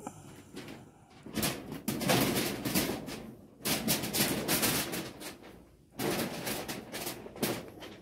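Rustling and crackling of garden foliage brushed close by, coming in uneven waves a second or two long with short lulls between.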